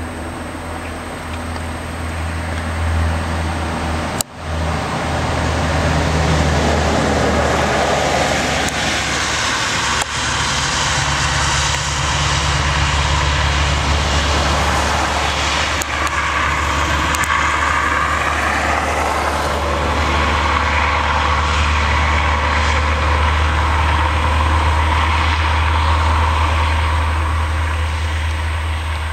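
Scania 144L 460's V8 diesel engine running, a deep steady rumble. A sudden break about four seconds in, after which it is louder and holds steady.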